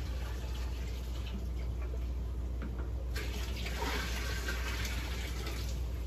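Water poured from a plastic bucket into a glass aquarium tank, splashing steadily, with the splash growing brighter about three seconds in.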